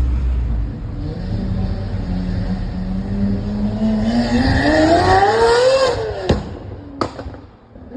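Lamborghini Aventador SVJ's V12 engine running at low revs, then revving up hard about four seconds in, its pitch climbing steeply for about two seconds before cutting off. Two sharp cracks follow, about a second apart.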